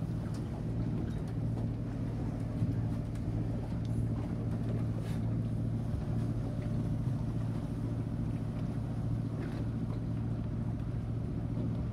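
Marine diesel engine running at a steady low speed: an even, low hum that does not change.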